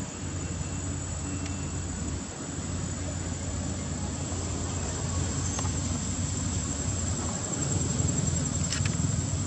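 Steady high-pitched drone of insects, with a steady low rumble underneath that grows a little louder near the end.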